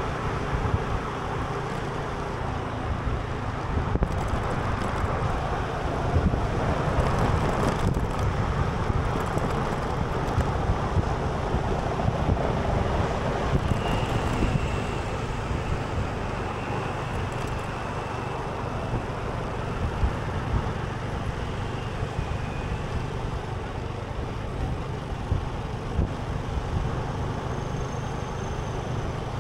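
Steady road traffic and vehicle rumble with wind on the microphone.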